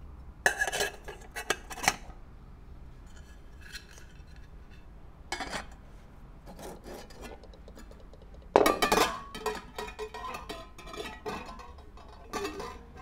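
Aluminium camping pots, frying pan and lids of a Naturehike cookware set clinking and clattering against each other as they are picked up, set down and nested, in several bursts; the loudest clatter comes about two-thirds of the way through.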